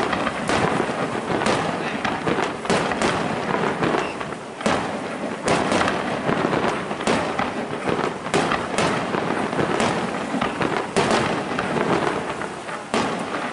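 Aerial firework shells launching and bursting in quick succession: a dense run of sharp bangs, about two a second, over a continuous noisy wash of echoing reports.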